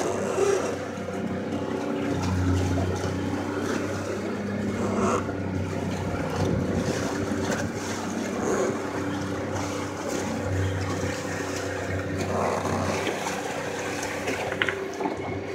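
Boat engine running steadily under way, a constant drone over the rush of water along the hull and wind buffeting the microphone.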